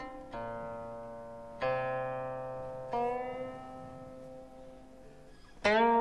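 Slow background music on a plucked string instrument: single notes plucked about four times, each left to ring and fade, the last one bent upward in pitch.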